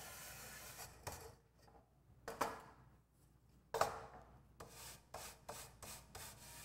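Sieve brush scrubbing across the wire-mesh screen of a metal soil-test sieve to clear wedged particles: a scrub at the start and a run of quick strokes near the end. In between, two knocks as the metal sieve frames are handled, the second with a short ring.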